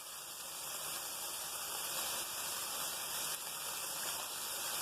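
Shredded chicken and diced vegetables sautéing in a skillet, a steady sizzle.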